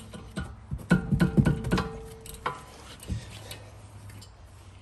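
A quick run of metallic clicks and clinks from a socket and ratchet working the brake caliper's 14 mm bolts loose, mostly in the first two seconds, over quiet background music.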